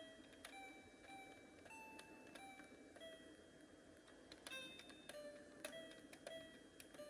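Toy electronic piano keyboard sounding faint single electronic notes as its keys are pressed, about one or two a second, each held briefly at a different pitch.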